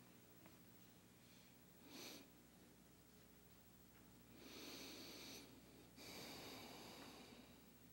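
Near silence: the hush of a congregation in silent prayer, with a faint steady room hum, a short soft noise about two seconds in and two longer soft noises in the second half.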